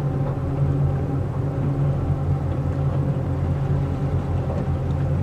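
Twin Ilmor 5.3-litre V8 sterndrive engines running at idle in gear, a steady low drone with no change in speed.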